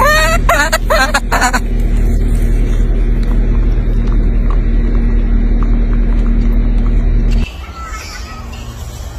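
A baby macaque gives about four short cooing calls that rise and fall in pitch, all within the first second and a half. Under them runs a steady low rumble that cuts off abruptly about seven and a half seconds in.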